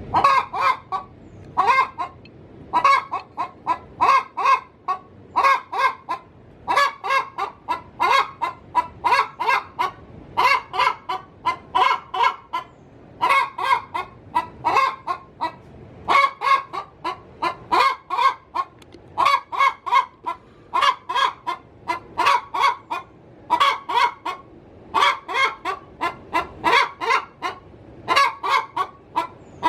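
Domestic hen cackling her pre-laying egg song: loud runs of short, rapid clucks, one run after another with brief pauses between them.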